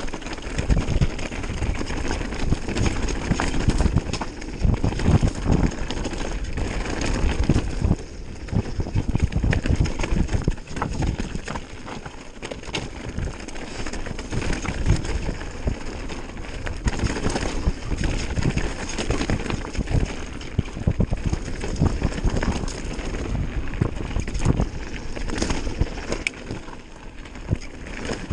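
Mountain bike descending a rocky dirt trail: knobby tyres rumbling and crunching over loose stones, with the bike's frame and suspension rattling in a dense, irregular clatter.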